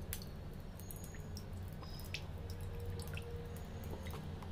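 Faint, scattered drips of water from parboiled potato fingers draining in a mesh strainer after a cold-water rinse, over a low steady hum.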